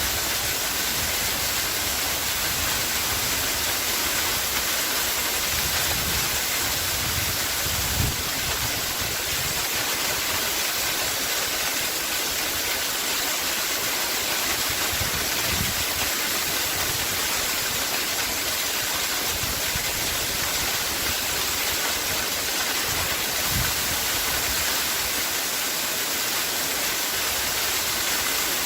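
Waterfall: a steady rush of falling water, with a few brief low thumps.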